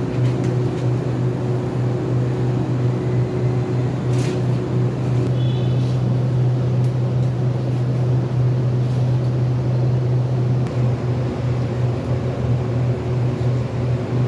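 Steady, loud, low machine drone that holds unchanged, with a faint higher steady tone over it for the first few seconds.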